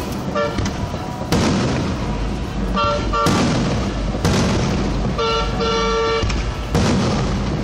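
Aerial fireworks shells going off in several sudden booms, about a second and a half, four and a quarter, and six and three-quarter seconds in, each with a long crackling, echoing tail. Between the booms, car horns honk in short toots, with a longer honk about five to six seconds in.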